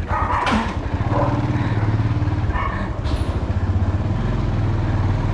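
A motorbike engine running at low speed as the bike moves off, a steady low hum that sets in about a second in.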